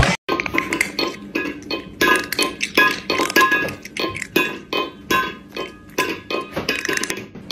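Crunchy chewing sound effect, an irregular run of short crunches and clinks about two or three a second, over light music.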